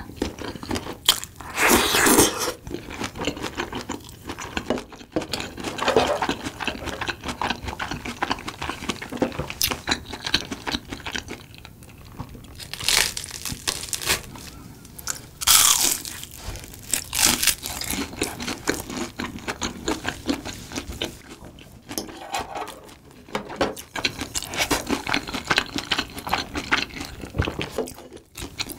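Close-miked eating: steady chewing with crisp crunching bites of fried Korean snacks such as gimmari and soft tteokbokki rice cakes, with several louder bites or slurps at intervals.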